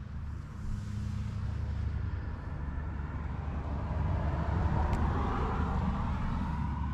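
Low, steady motor-vehicle rumble, with a passing vehicle swelling louder about four to six seconds in and easing off slightly lower in pitch. A single small click about five seconds in.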